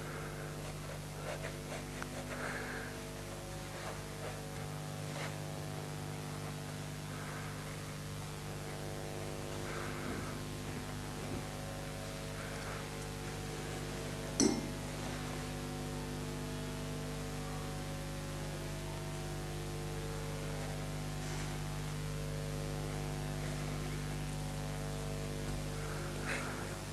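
Steady electrical hum, with a few faint soft sounds of fingers working soft modelling paste and a single sharp click about halfway through.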